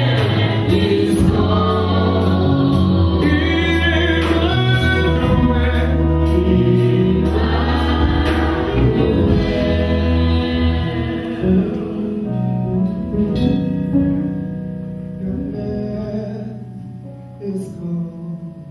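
Live gospel praise singing by a worship team with band accompaniment, the voices over a strong bass line. About two-thirds of the way through, the singing and band fall away to softer, held chords.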